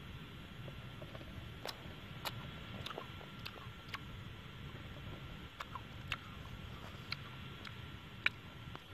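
Scattered light clicks and crackles of crisp roasted scorpions being handled in a coconut-shell bowl, about one every half second to second, the sharpest near the end, over a low steady rumble.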